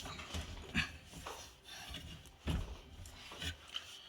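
A few scattered knocks and clunks from a built-in dishwasher being shifted and handled in its cabinet opening, the loudest about two and a half seconds in.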